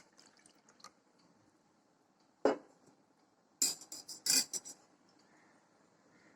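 Kitchen utensils knocking and clinking while melted jaggery syrup is strained: one knock about two and a half seconds in, then a quick run of clinks about a second later.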